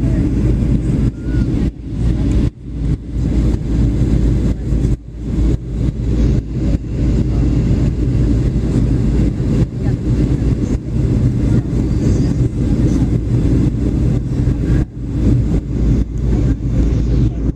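Airliner cabin noise in flight: a steady low rumble of engines and airflow, dipping briefly a few times.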